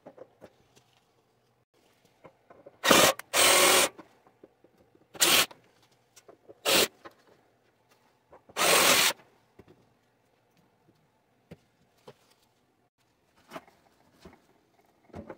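Handheld power tool run in five short bursts of under a second each, with pauses between and a few light handling clicks.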